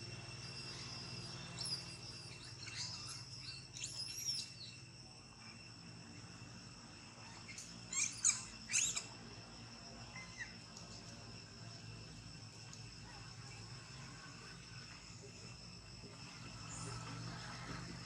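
Two clusters of high-pitched, arching squeaky calls, the second about halfway through and the loudest, over a steady high insect drone.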